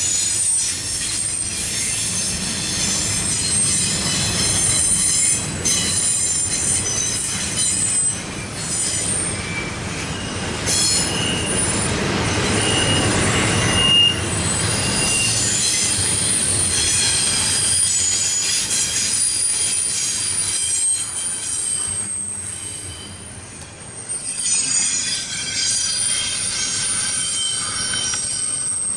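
CSX double-stack intermodal freight train rolling past at close range, its wheels squealing in several high, shifting metallic tones over a steady low rumble.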